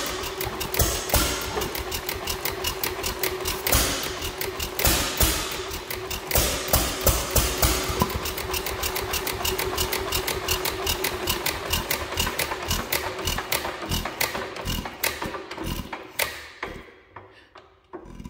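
Antique single-cylinder hit-and-miss engine running on starting fluid: a fast, even firing clatter with a steady ringing tone underneath, slowing and dying away near the end as it coasts down. The governor detent is not latching as it should, which the owner guesses is an overly stiff governor spring overpowering the governor.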